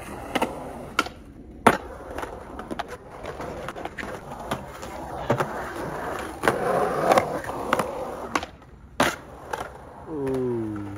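Skateboard wheels rolling over concrete, broken by several sharp clacks of the board striking the ground.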